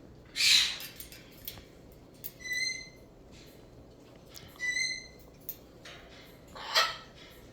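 Cockatoo calling: two brief rasping noises and two short, even-pitched whistled notes between them.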